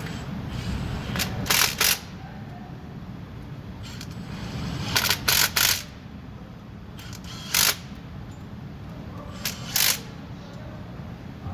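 Hand ratchet wrench clicking in short bursts of strokes as the new water pump's bolts are tightened, several quick strokes together about a second in and around five seconds, then single strokes near eight and ten seconds, over a steady low hum.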